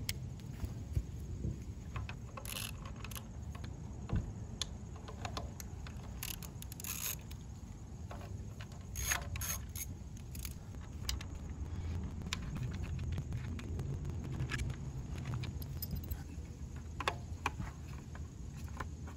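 Light metallic clicks and jingling of a T27 Torx driver and the loose screws as the three screws holding a motorcycle's stock air cleaner cover are taken out. Near the end the cover is handled and lifted off. A low steady rumble sits underneath.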